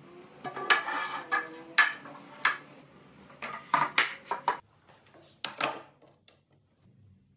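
Hardwood boards dropped and laid on a concrete floor: a series of sharp wooden knocks and clacks, each with a short ring, growing sparser and fainter near the end.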